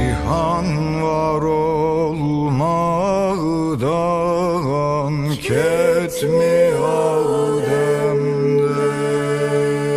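A voice singing a slow, wavering, ornamented line with vibrato over a steady drone, settling into a long held note in the second half.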